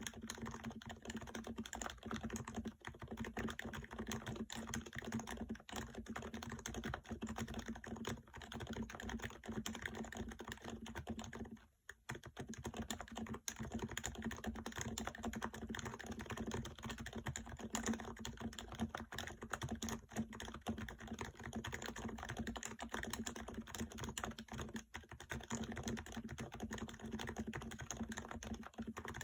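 Continuous typing on a Topre electrostatic-capacitive keyboard with 55g rubber-dome switches, a fast, dense run of muted keystrokes with a brief pause about 12 seconds in.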